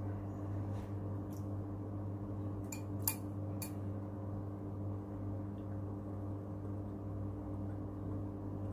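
A steady low hum under a few short sharp clicks in the first four seconds, the loudest about three seconds in: chopsticks tapping against a bowl while eating noodles.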